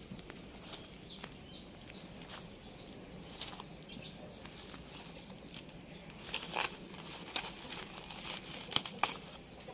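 Thin plastic packaging crinkling and crackling as small plastic bags are pulled out of a black plastic mailer, with a few sharper crackles. A small bird chirps rapidly in the background through the first half.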